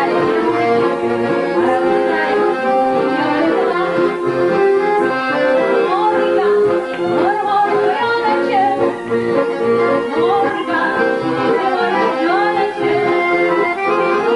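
Live band music: a fiddle playing a melody over guitar, with a woman singing.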